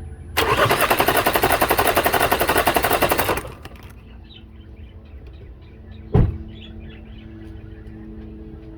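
Chevy Cruze engine cranking on the starter for about three seconds with a rapid, even pulsing and not firing: the cranking for a compression test, with the gauge on cylinder 2. A single short thump follows a few seconds later.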